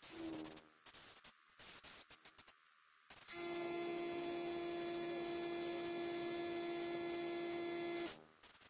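Short hissing bursts from a paint spray gun in use, then a workshop air compressor cuts in with a steady buzzing hum for about five seconds and stops.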